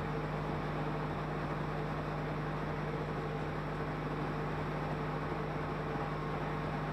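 Wood-gas-fuelled car engine of a combined heat and power unit running at a steady speed, a constant even hum with no change in pitch or level.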